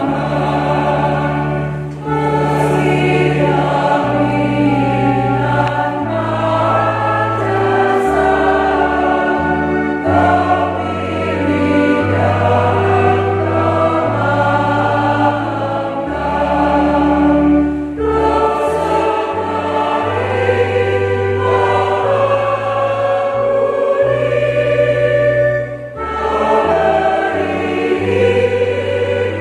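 Church choir singing a hymn in parts over long, steady held low notes. There are short breaks between phrases about two seconds and twenty-six seconds in.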